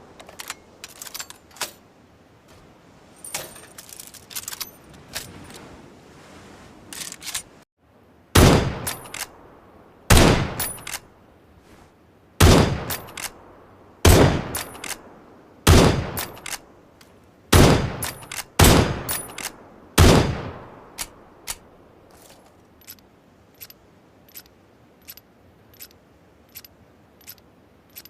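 Recorded gunshot sound effects: a string of single loud shots a second or two apart, each fading quickly, some in quick pairs. Before them come scattered light clicks, and after them a run of light, evenly spaced clicks.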